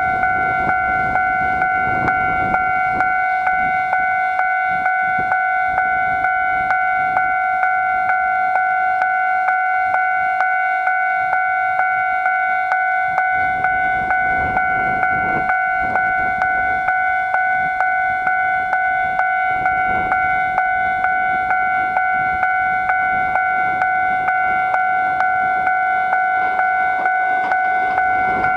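Japanese railway level-crossing warning bell ringing in a steady, fast repeating pattern, signalling that a train is approaching. The noise of the oncoming train begins to rise near the end.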